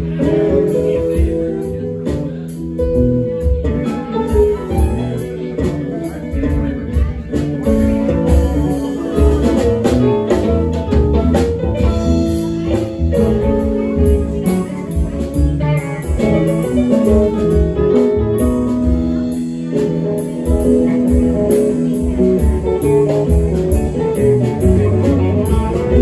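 Live band playing: electric guitars over drums and an electric keyboard, in a steady groove.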